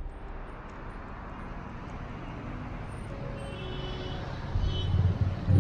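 Road traffic noise: a steady hiss of passing vehicles, with a vehicle's engine rumble growing loud near the end.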